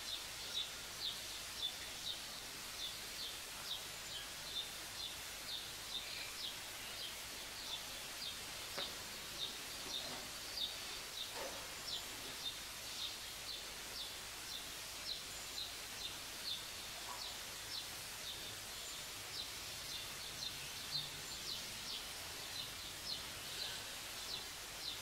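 Short, high chirps repeating evenly about twice a second from a small animal, over a steady hiss.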